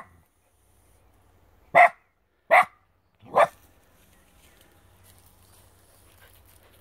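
A dog barking: three short barks a little under a second apart, about two to three and a half seconds in.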